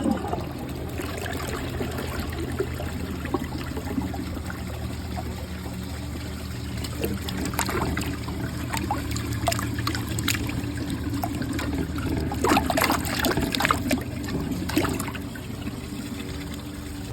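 Water trickling and running steadily in a 2005 Crane toilet as its tank is emptied into the clogged bowl and refills, with scattered short sharper water sounds in the second half.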